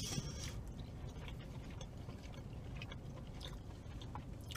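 Faint close-up chewing of a bite of pan crust pizza, with soft wet mouth clicks.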